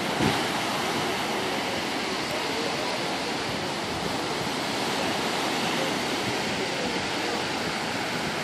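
Steady wash of Lake Erie surf breaking and rolling onto a sand beach.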